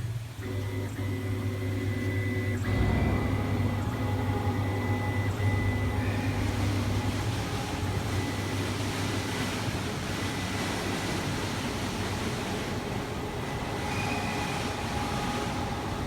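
1325 CNC wood router running, with a steady low hum and a thin steady high whine. A rushing noise joins about three seconds in and grows louder about six seconds in.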